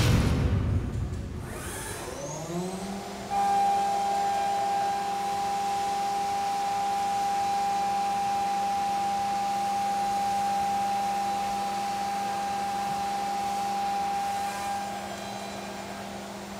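CNC mill spindle at about 12,000 rpm driving a 3-inch Kennametal Stellram shell mill through aluminium at 100 inches per minute. The spindle rises in pitch to speed, then a steady high whine of the cut sits over the spindle hum from about three seconds in and stops shortly before the end. A loud whoosh comes in the first second.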